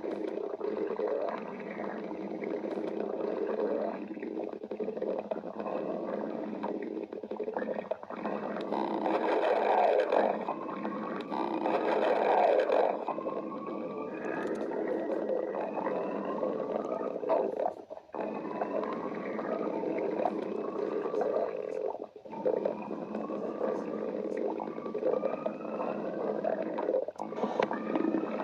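Stomach growling: a long, continuous gurgling rumble with many squeaky upward-gliding notes, breaking off briefly twice in the second half.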